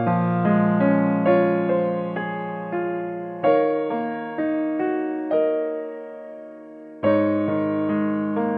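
Background piano music: single notes and chords struck and left to ring and fade, with a fresh, louder chord twice.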